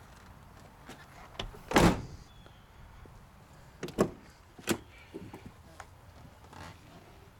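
Rear door of a 2000 Chevrolet Silverado 3500 crew cab being shut, a loud full-range bang about two seconds in. About two seconds later come two shorter, sharper clicks of the handle and latch as the door is opened again.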